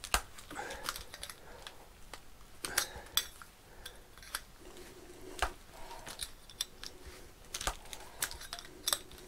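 Hand-operated copper pipe expander being squeezed on the end of a copper pipe: irregular sharp metallic clicks and clinks from the tool's handles and expanding head against the pipe.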